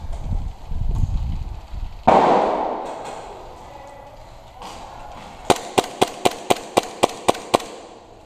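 A Glock-style gas blowback airsoft pistol fired rapidly near the end, about nine sharp cracks at about four a second. Earlier, about two seconds in, one loud bang trails off over about a second.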